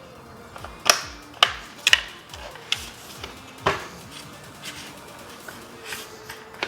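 Several sharp clicks and knocks of plastic mirror parts and tools being handled during assembly, the loudest about a second in and near the middle, over faint background music.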